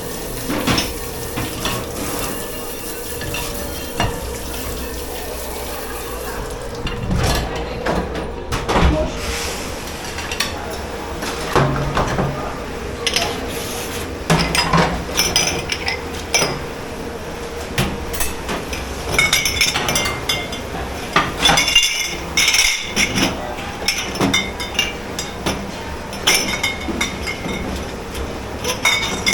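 Dishes, pots and cutlery clattering and clinking as they are handled at a kitchen dish pit. A steady hum runs under the first few seconds, and the clinking grows denser and brighter in the last third.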